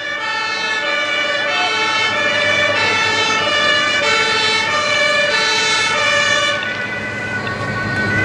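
German police two-tone siren (Martinshorn) sounding, alternating steadily between a high and a low pitch. It becomes softer after about six and a half seconds.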